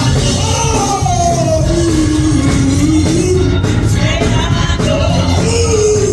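Live church praise music: a singer's held, sliding vocal line over a band with heavy bass.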